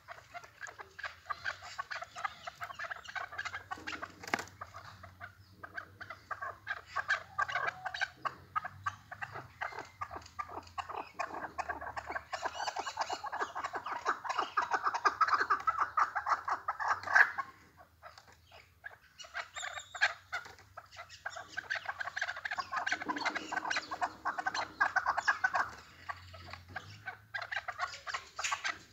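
Chukar partridges calling in a fast run of repeated clucking notes, in two long bouts with a short break near the middle.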